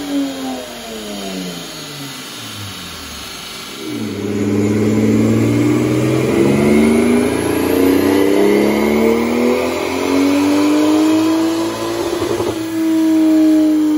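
Toyota Aristo's 2JZ-GTE twin-turbo straight-six on a rolling road. The revs fall away at first; then, about four seconds in, a loud full-throttle pull under load begins, with the engine pitch climbing steadily for about eight seconds. Near the end the engine is cut off abruptly and the revs drop.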